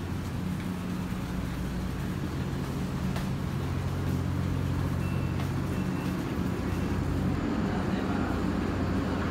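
Steady low drone of a ferry's onboard machinery, with a faint high beep sounding three times a little past the middle.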